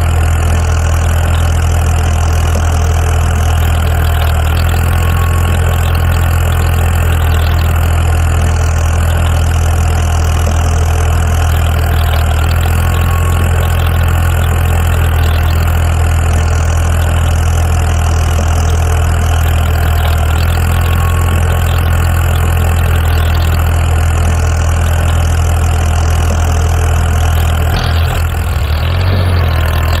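Looped tractor engine sound effect: a steady, low diesel idle with an even hum that repeats every few seconds, briefly breaking up near the end.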